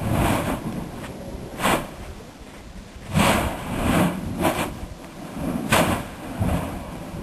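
Mount Yasur's active vent degassing in quick irregular puffs, a rushing burst about once a second over a low rumble, as it throws up glowing lava spatter.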